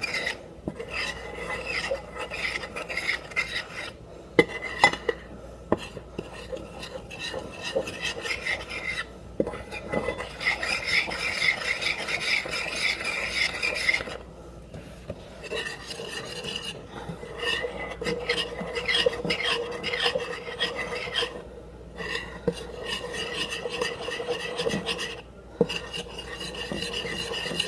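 Metal spoon stirring a thick chocolate ganache mixture in a ceramic bowl, scraping steadily against the bowl. It stops briefly several times, and the spoon clinks against the bowl now and then.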